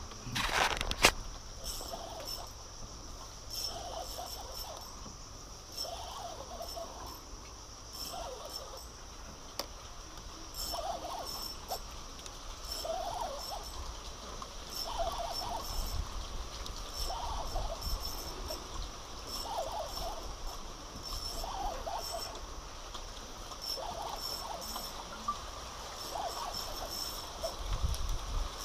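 Insects shrilling steadily, with a short chirping call repeated about every two seconds and a sharp click about a second in.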